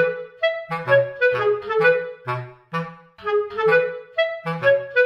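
Light background music: a melody of short pitched notes over a bass note that comes about every half second.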